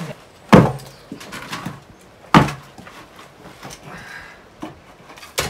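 Two loud knocks about two seconds apart, with lighter knocks and scrapes between: hammer blows on the wooden shuttering of a concrete wall.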